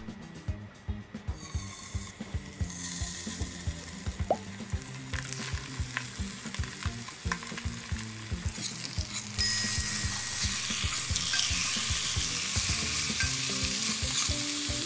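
Salted mackerel fillets sizzling in olive oil in a stainless steel frying pan. The hiss builds about two seconds in and grows louder about halfway through.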